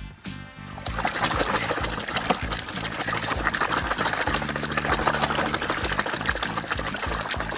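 Water running and splashing, starting about a second in and continuing steadily, as toys are washed. Background music with a steady beat plays underneath.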